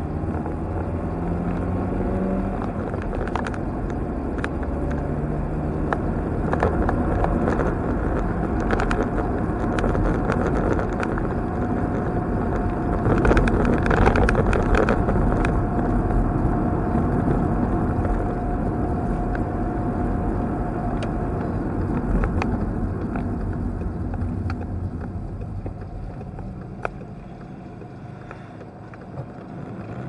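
Car driving, heard from inside the cabin: steady engine and tyre road noise that quietens near the end as the car slows to a stop.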